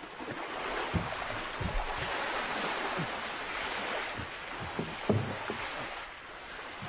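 Sea waves washing in: a steady hiss that swells and eases, with a few dull low thumps.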